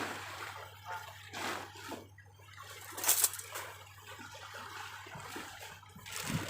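A tent's fabric and gear being handled during setup: irregular rustling and crinkling, with one sharper crackle about three seconds in.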